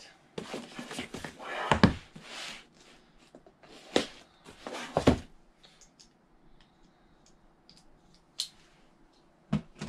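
Cardboard mystery box being opened: packing tape slit and scraped with a blade, with rustling and three sharp knocks, about two, four and five seconds in, as the box is turned and set down on the table, then a few small clicks.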